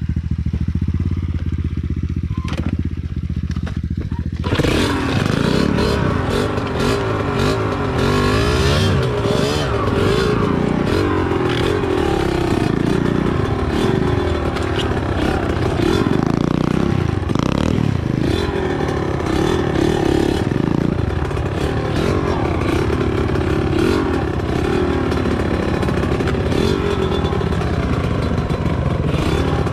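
Small motorcycle engine running, muffled for the first few seconds, then about four seconds in it turns louder and fuller, its pitch rising and falling, with frequent rattles and knocks over it.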